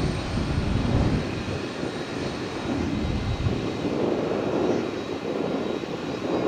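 Airliner jet engines running at the airport, a steady broad roar. Its deep rumble is strong at first and falls away after a couple of seconds, while the higher part of the roar carries on.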